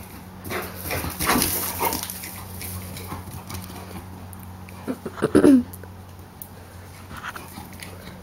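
A dog and a fawn at play. There is a burst of scuffling about a second in, with short cries. About five seconds in comes one loud cry that falls in pitch.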